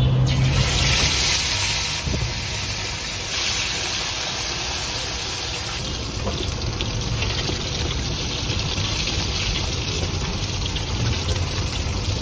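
Coated pomfret fish sliding into hot oil in a wok: the oil starts sizzling sharply as the fish goes in and keeps up a steady, hissing deep-fry sizzle.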